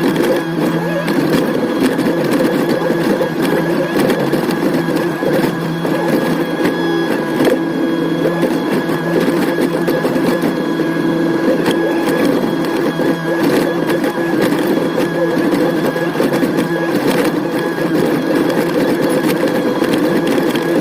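Excavator's diesel engine running steadily at working speed, with a few brief knocks.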